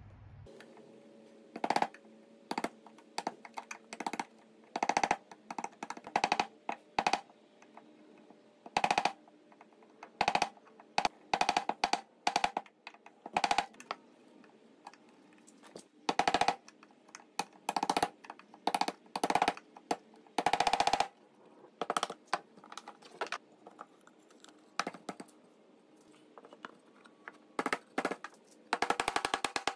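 Hand chisel being struck to chop a mortise in a red oak board: irregular sharp wooden knocks, a second or so apart, some ringing briefly. A fast run of taps comes near the end.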